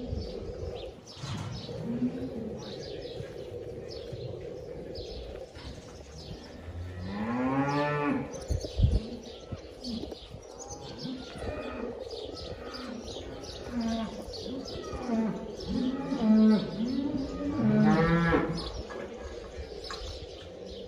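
Dairy cows, Holsteins, mooing again and again: shorter, lower calls throughout, with two long, loud moos, one about seven seconds in and one near the end. A faint steady hum runs underneath, and there is a brief low thump about nine seconds in.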